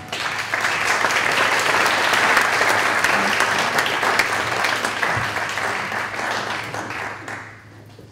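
Audience applauding, a crowd's dense clapping that starts straight away and dies away near the end.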